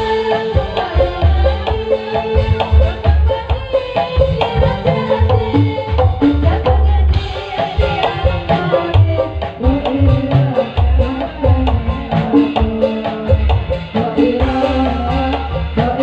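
Loud folk music with hand drums beating a steady rhythm over a heavy bass and melody lines.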